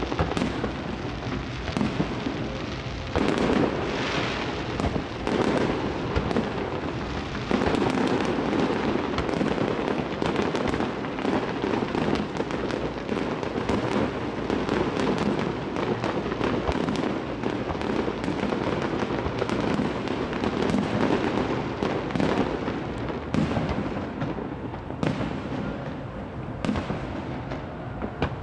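Fireworks display: a dense, unbroken barrage of bangs and crackling as aerial shells burst one after another, heard from a distance.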